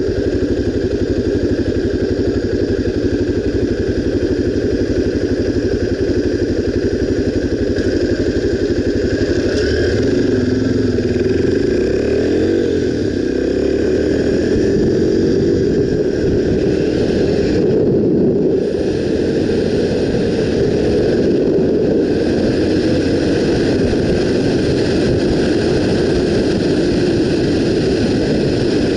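Honda XR 250 Tornado's single-cylinder engine running under way, mostly at a steady note, with its pitch rising and falling through several gear changes about ten to fifteen seconds in.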